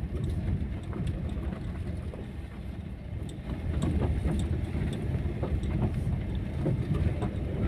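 Cabin noise of a Daihatsu Ayla driving slowly over a rough dirt road: a low rumble of tyres and engine with scattered knocks and rattles from the uneven surface. It grows a little louder about halfway through.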